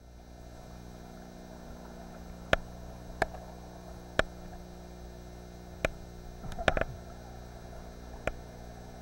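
Steady electrical hum from the camera's recording, broken by sharp knocks every second or so, with a quick cluster of them about two-thirds of the way through.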